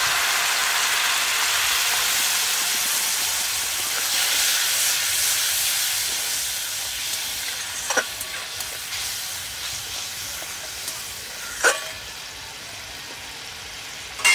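Water poured into hot oil and ground spices in a metal kadai sizzles and hisses loudly as the masala cooks down, the sizzle easing off gradually over the seconds. A metal spatula clinks against the pan a few times as the masala is stirred, most sharply about eight seconds in and near the end.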